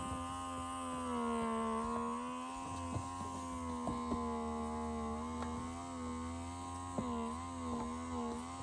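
Small electric motor of a handheld vacuum earwax-removal device running on high with a steady buzzing hum. Its pitch dips and wavers now and then as the suction tip is worked at the ear, with a few light clicks of handling.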